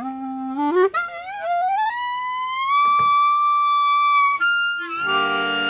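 A single sustained note slides steadily upward from low to high and then holds. After about four seconds it gives way to a sustained chord of several notes.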